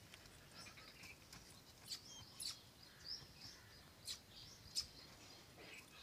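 Faint bird chirping: scattered short, high chirps over near silence.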